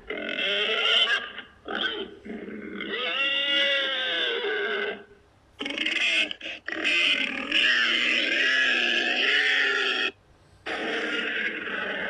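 Custom-made Godzilla monster roar sound effects: a run of about six harsh, grunting roars and growls of varying length with short pauses between them. One call a few seconds in carries a clear pitch that arches up and back down.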